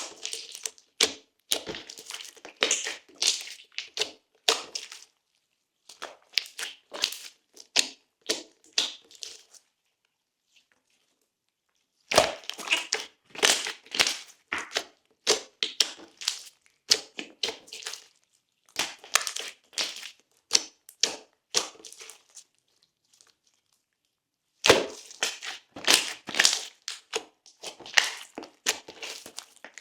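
Slime being squeezed and worked by hand, giving dense runs of wet clicks and crackling pops. The sound comes in several stretches, with two pauses of about two seconds.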